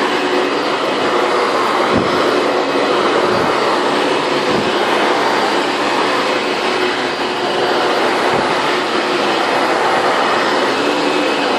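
Late-1990s Hoover Bagless twin-chamber upright vacuum cleaner running steadily, with a few low thumps along the way.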